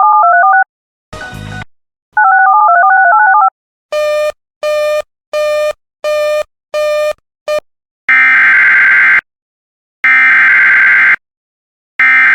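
Electronic alert tones. A warbling two-note tone sounds twice, then six short beeps, then three harsh, buzzy data bursts of about a second each: the Emergency Alert System SAME header that opens the next warning.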